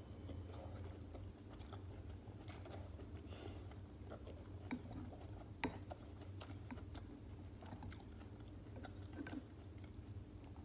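Close-miked chewing and biting of stuffed cabbage rolls: soft wet mouth sounds with scattered short clicks, over a steady low hum.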